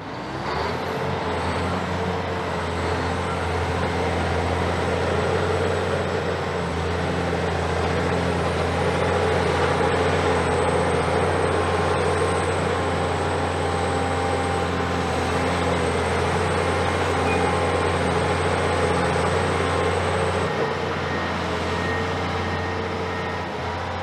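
Komatsu PC490 long-front demolition excavator's diesel engine revving up under hydraulic load as the boom and shear swing. It holds a steady, loud drone with a thin high whine over it, and both ease off about 20 seconds in.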